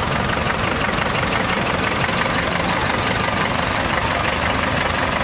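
Vintage tractor engine running steadily as the tractor drives slowly past at close range.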